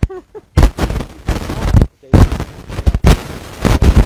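Loud, irregular bursts of crackling distortion on the recording, each lasting about half a second to a second with short gaps between, drowning out a man's voice. This is audio disruption, not a sound from the scene.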